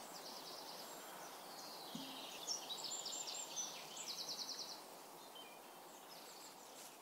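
Small birds singing high, quick trilled phrases, one in the first second and a longer run from about two to nearly five seconds in, over a steady outdoor background hiss.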